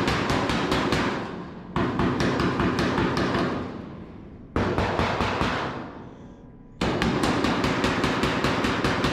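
A hammer tapping rapidly and evenly on the Mustang's sheet-steel body panel, working the metal up to meet the new roof panel; the tapping stops three times, the ring fading, then starts again.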